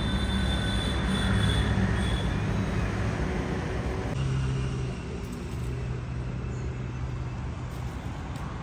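A motor vehicle's engine running, a steady low hum that eases slightly about halfway through.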